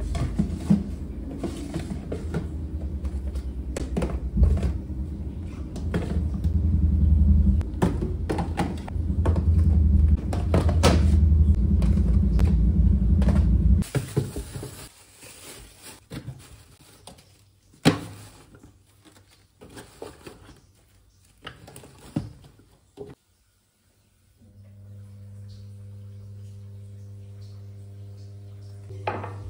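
Plastic food-storage containers knocking and clicking as they are set onto refrigerator shelves and slid into place, over a steady low rumble for the first half. The knocks thin out after that, and a steady low hum starts a few seconds before the end.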